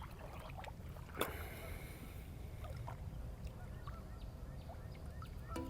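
Steady low rumble of wind and water around a small fishing boat, with a single sharp knock about a second in and faint short chirps through the middle. Near the end, pitched honk-like calls begin.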